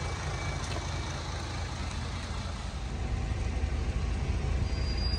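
Bus engine idling: a steady low rumble that gets a little louder about three seconds in.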